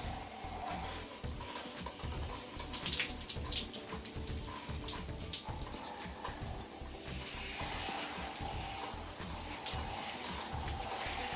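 Shower water running steadily, with brief splashy bursts about two to four seconds in.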